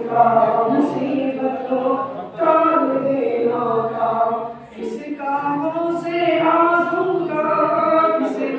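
A man singing an unaccompanied Islamic devotional hymn into a microphone over a public-address system. He holds long, drawn-out notes in phrases, with short breaks between them.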